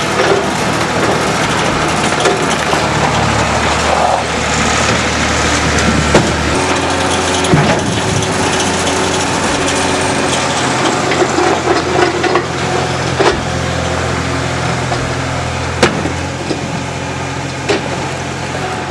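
An engine running steadily, its note shifting about six and a half seconds in, with sharp knocks scattered through.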